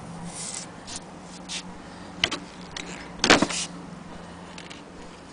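Handling sounds on an antique Husqvarna Freja hand-crank sewing machine: scattered light clicks, a sharp click a little after two seconds, then a short clatter just after three seconds, the loudest sound.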